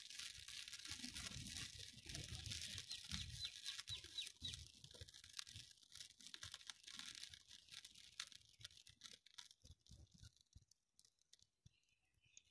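Petrol fire in a small metal tray, with a soldering iron lying in it, crackling and hissing as the flames die down, fading to near silence about ten seconds in.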